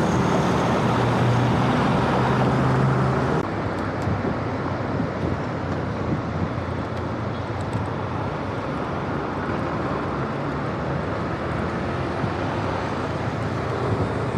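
Steady vehicle engine and road noise. About three and a half seconds in it drops abruptly to a quieter, duller rumble and carries on steadily.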